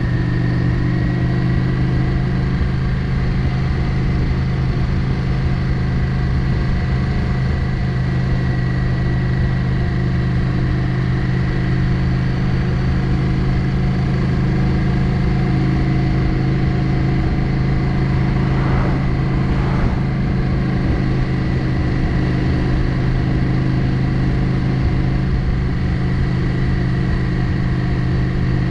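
Yamaha XVS 650 Drag Star's air-cooled V-twin engine running at steady revs while the motorcycle is ridden along a road.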